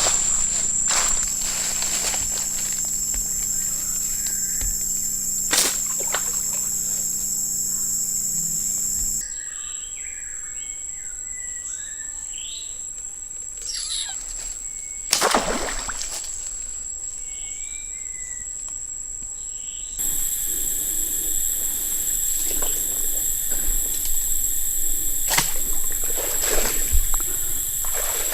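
Outdoor ambience with a steady high-pitched insect drone, broken by a quieter stretch of short bird chirps in the middle. A sharp, loud thud or whoosh stands out about fifteen seconds in, and the background changes abruptly twice.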